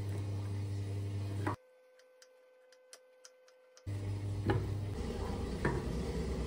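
Kitchen knife striking a wooden cutting board in sharp, separate clicks while cutting meatball cubes. Quiet background music plays under it and drops out for about two seconds in the middle.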